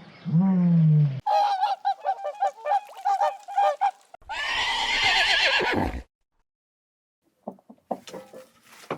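A series of animal calls from different animals: a low call falling in pitch, then a quick run of short repeated calls, then a loud call that slides down in pitch and stops abruptly about six seconds in. After a short silence, a few sharp clicks follow near the end.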